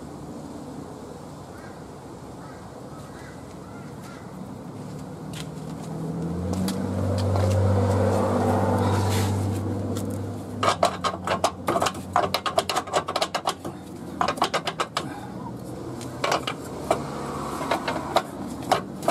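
A low engine hum swells and fades about six to ten seconds in. Then comes a long run of quick, irregular metallic clicks in bursts: a ratchet wrench being worked on a suspension bolt.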